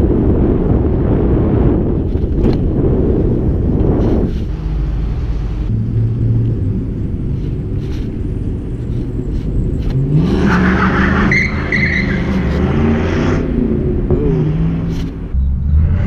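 Wind buffeting and road rumble on a bicycle-mounted GoPro's microphone while riding a BMX bike, heavy for the first four seconds and then easing off. A motor vehicle's engine is heard for a few seconds about ten seconds in.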